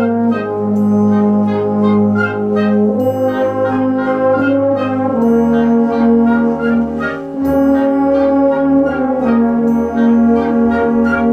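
Traditional South Tyrolean wind band (Blaskapelle) playing, with full sustained brass chords from trombones, trumpets and horns that change every couple of seconds.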